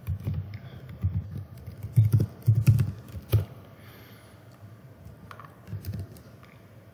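Computer keyboard typing: a quick run of keystrokes over the first three and a half seconds as text is entered, then a few scattered clicks.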